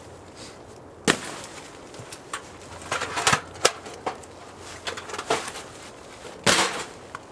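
Camping gear being unpacked from a backpack and handled: separate knocks, clicks and rustles. There is a sharp knock about a second in and a cluster of clatters around three seconds. The loudest is a rustling thud about six and a half seconds in, as a flat item is set down on the plastic groundsheet.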